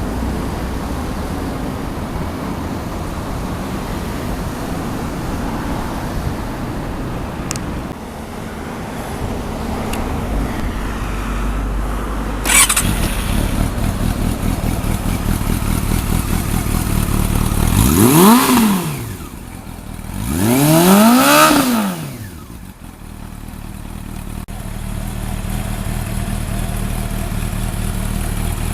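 Honda CB400SF's inline-four engine idling through a WR'S slip-on silencer, with a sharp snap near the middle. Later it is revved twice, each rev rising and falling back to idle.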